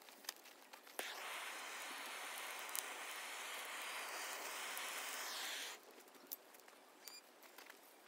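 Handheld gas torch lighter lit with a click about a second in, then the steady hiss of its flame for about five seconds before it shuts off abruptly.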